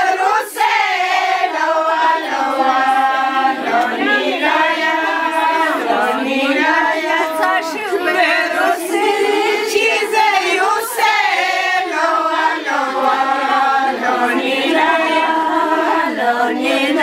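Group of women singing together unaccompanied, a traditional wedding song, with long held notes that slide between pitches.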